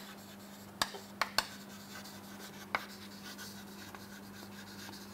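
Chalk writing on a chalkboard: faint scratching with a few sharp taps as the chalk strikes the board, over a faint steady hum.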